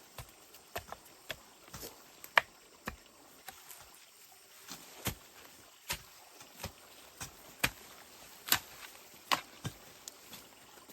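Irregular sharp knocks and taps of a hand tool at work, roughly one or two a second and uneven in strength, with one louder strike about two seconds in and another past eight seconds.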